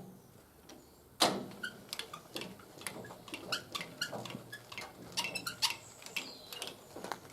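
Irregular mechanical clicking and ticking from a bandsaw mill's carriage being raised, with a sharp knock about a second in and small squeaks among the clicks.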